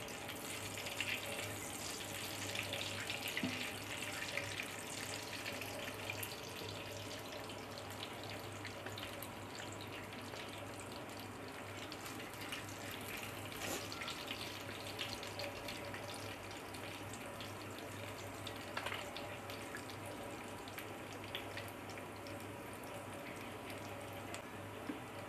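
Spices, nuts and raisins sizzling in hot oil in a nonstick frying pan, a steady crackling fry as a spatula stirs them, over a low steady hum.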